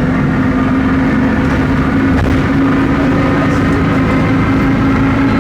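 Volksbus 17.230 OD bus under way, its MAN D0834 diesel running steadily, with a steady drone from the differential, which is growling.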